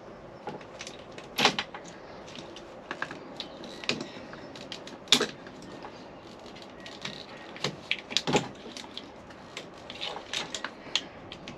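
Hands working at a truck's steering column: scattered clicks, taps and knocks of plastic trim and wiring connectors being handled. Sharper knocks stand out about a second and a half in, around five seconds and around eight seconds.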